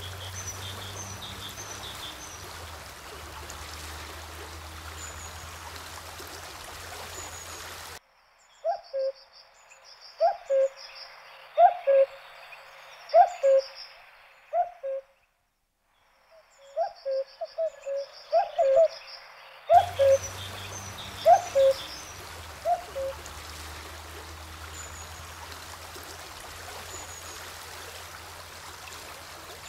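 Rushing river water with small birds chirping high above it. For a stretch in the middle the water sound drops away, leaving a bird's loud low two-note calls, the second note lower than the first, repeated about every second and a half.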